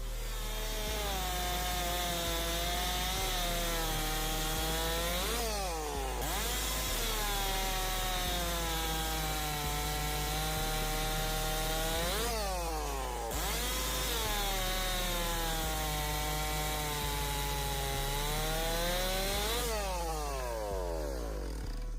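Stihl 064 single-cylinder two-stroke chainsaw cutting wood, its engine pitch sagging under load through each cut. It revs freely between cuts about six and thirteen seconds in, and eases off near the end.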